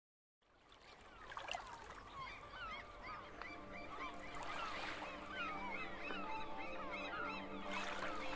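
Fading in from silence, a large flock of egrets calls over one another in a dense chorus of short squawks. A soft, steady music chord comes in underneath about three seconds in.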